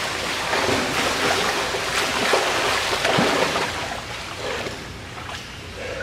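Pool water splashing and churning as a swimmer's strokes pass close by, with small irregular splashes. It dies down after about three and a half seconds as the swimmer moves away.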